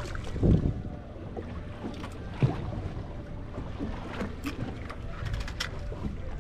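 Boat rocking on open water: a steady low rumble of wind and water against the hull, with a couple of knocks about half a second and two and a half seconds in, and scattered light clicks later on.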